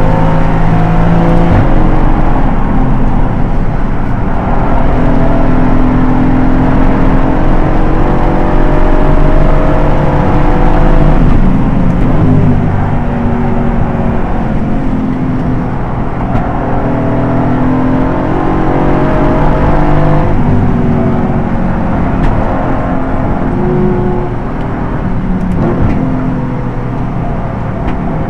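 Aston Martin GT4 race car's V8 engine at race pace, heard from inside the car: the revs climb and drop again and again through the gears.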